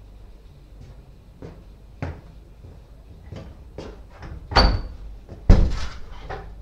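Light footsteps on a tiled floor, then a wooden interior door being unlatched and swung open. This gives a sharp latch click with a brief metallic ring, and about a second later a louder knock with a short rattle.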